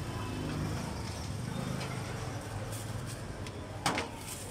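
Street traffic, with a motor vehicle engine running as a steady low hum, and a single sharp clink or knock near the end.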